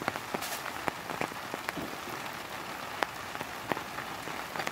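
Heavy rain on a camp shelter and tarp: a steady hiss with irregular single drops tapping loudly close by.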